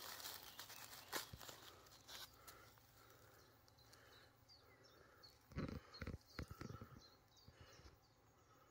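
Near silence, broken by faint rustling of grass and handling noise as a wild mushroom is picked by hand, loudest in a short cluster of rustles about two-thirds of the way through.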